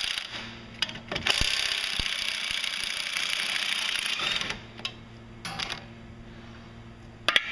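Power ratchet spinning bolts out of a mower's cross brace. It runs briefly at the start, then for about three seconds from just after a second in, with two short bursts near the end.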